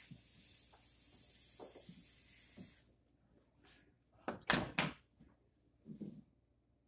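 Steady high hiss of gas escaping from the refrigerator's refrigerant line, cutting off suddenly about three seconds in. It is followed by a few sharp metal clacks and a duller knock as pliers are handled and set down on a wooden floor.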